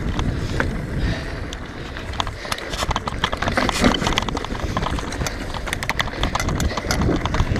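Mountain bike rolling fast down a dirt trail: tyres running over dirt and roots, with a dense run of rattling clicks and knocks from the bike over the bumps, thickest from about halfway through, over a low rumble of wind on the microphone.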